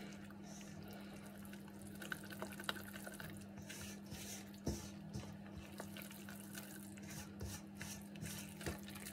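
Hand mixing flour into wet, oily dough in a stainless steel bowl: faint squishing and squelching with light scattered ticks.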